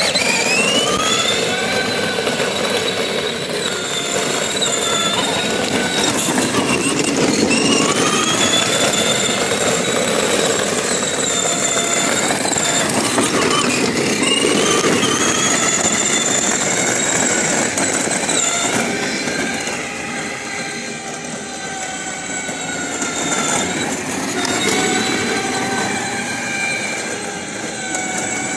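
Kid Trax Dodge Viper ride-on toy car running on a 12-volt battery upgrade: its electric drive motors whine, the pitch rising and falling several times as it speeds up and slows, over the steady rolling noise of hard plastic wheels on asphalt.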